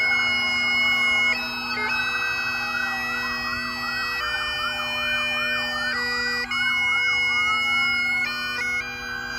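Police car sirens sounding. A wail switches to a fast yelp about two seconds in and back to a long rising wail near the end. Under the sirens is a melody of held notes over a steady low drone.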